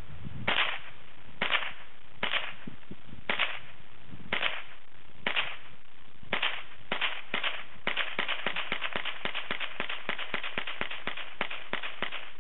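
Gunshots fired at a target: single shots about a second apart at first, then quickening into a rapid string of several shots a second over the last few seconds.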